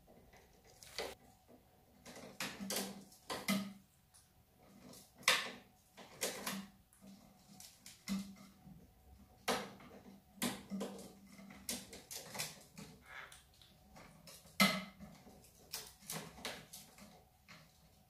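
Irregular clicks, knocks and light rattles of quaker parrots playing on a wooden play stand, their beaks and feet knocking the wood and hanging toys. The two loudest knocks come about five and fifteen seconds in.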